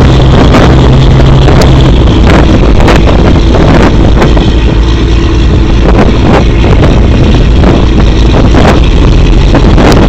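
Twin Cummins K-series diesel engines of a large fishing boat running steadily in a low rumble, with wind buffeting the microphone. A humming tone in the engine sound stops about two seconds in.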